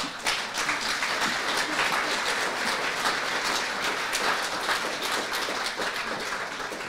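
Audience applauding, steady and then beginning to thin out near the end.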